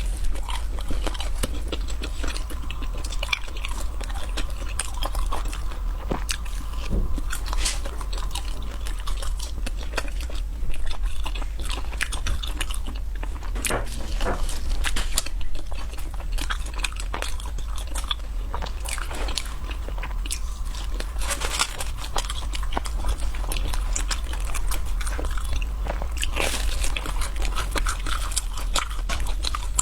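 Close-miked crunching and chewing of fried snacks, with many sharp crisp bites throughout over a steady low hum.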